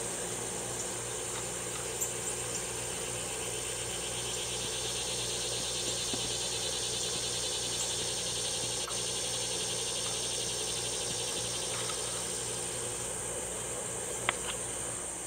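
Steady outdoor insect chorus: a continuous high-pitched trill, joined in the middle stretch by a faster pulsing trill, over a low steady hum, with a few faint clicks.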